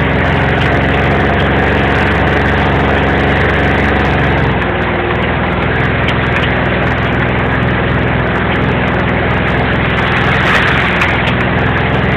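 A vehicle engine running steadily at a low, even speed, easing down slightly about four and a half seconds in.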